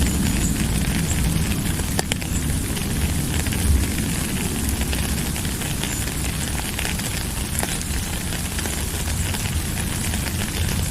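Steady rain falling: a dense hiss with many small drop ticks over a low rumble, and one sharper tick about two seconds in.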